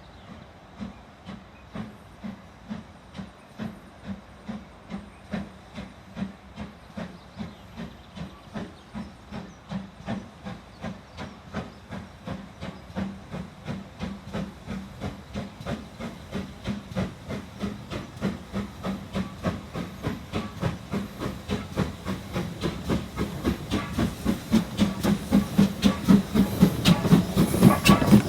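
Steam locomotive working hard, its exhaust beats coming quicker and louder as it picks up speed, over a steady hiss of steam.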